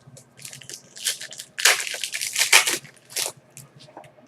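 Foil wrapper of a Panini Contenders hockey card pack crinkling and tearing as it is ripped open, in a run of crackly rustles lasting about three seconds, loudest in the middle.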